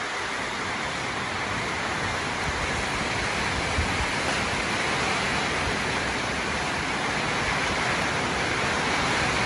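Steady hiss of rain falling, even and unbroken, growing slightly louder toward the end.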